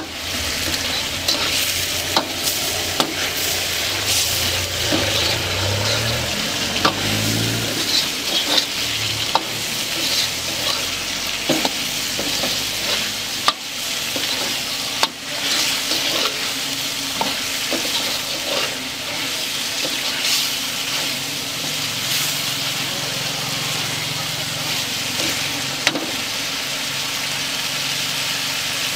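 Chicken masala sizzling as it is stir-fried in a large kadai, with a metal slotted ladle scraping and clinking against the pan at irregular moments.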